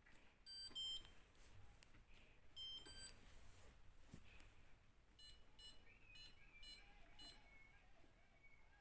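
Short electronic beeps from a Whirlpool dishwasher's control panel as its buttons are pressed: two, then two more, then a run of five. They are faint and high-pitched.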